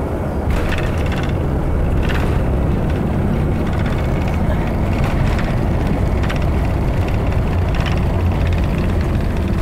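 Cabin noise of an Embraer ERJ145 twin-jet on its landing at night: a steady low rumble of engines and airflow that grows a little louder about half a second in. A few brief rattles or rushes sound over it.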